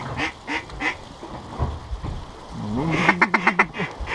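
Mallard-style quacking: a run of evenly spaced quacks, about three a second, fades out in the first second. About three seconds in comes a quick burst of short, rapid quacks.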